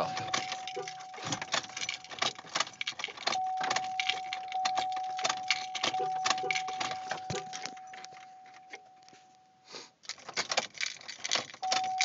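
Ignition keys jangling and the ignition switch clicking as the key is turned back and forth in a 2003 Chevy Trailblazer, with no starter cranking and no engine sound: a no-crank, no-start. A steady high tone runs underneath, stops about ten seconds in, and returns near the end.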